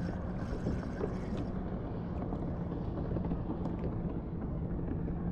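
Steady low rumble of wind and water noise on open water, with a faint steady hum running underneath and a few faint small ticks.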